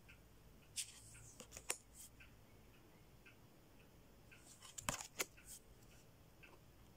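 Tarot cards being handled and slid from the top of the deck: faint clicks and rustles of card stock, a few scattered ones and a small cluster about five seconds in.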